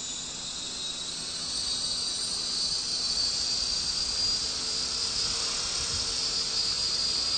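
Radio-controlled model helicopter's motor and rotors spooling up under rising throttle: a high whine that climbs a little in pitch and grows louder over the first few seconds, then holds steady as it reaches hover.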